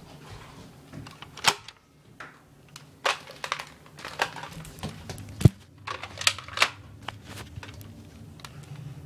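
Irregular sharp clicks and knocks, about a dozen spread through the stretch, the loudest a low thump about five and a half seconds in, over a faint steady hum.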